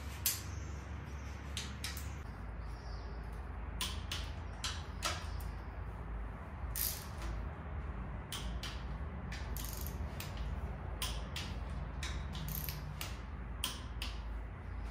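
Torque wrench ratchet clicking in short, irregular runs as connecting rod cap bolts are tightened in a first step to 25 N·m, over a steady low hum.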